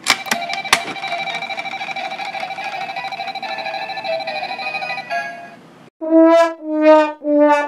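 Licca Chan toy cash register's prize wheel spinning: rapid clicking over a steady electronic tone for about five seconds, fading out. About six seconds in the register plays a trumpet-like electronic fanfare, three short notes in a row.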